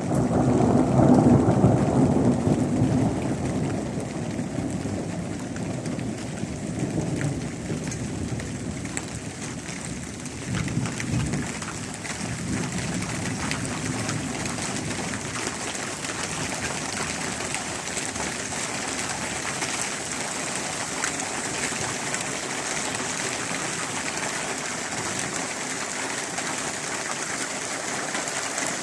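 Heavy rain falling steadily, with thunder. A long rolling peal of thunder sounds at the start and dies away over a few seconds, and two weaker rumbles follow, leaving the even hiss of the downpour.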